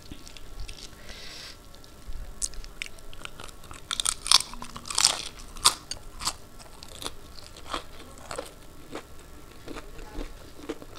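Close-miked eating: a mouthful of deep-fried puri with pea ghugni being bitten and chewed, with crisp crunching and wet mouth sounds. It is loudest a few seconds in, then eases into softer chewing.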